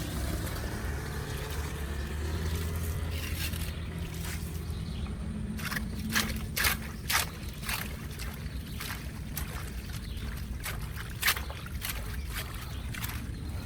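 Floodwater running and trickling into a drain, with a steady low rumble. From about halfway in come irregular sharp clicks and knocks.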